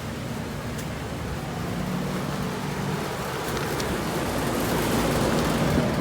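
Traffic noise with a vehicle engine running, getting somewhat louder near the end.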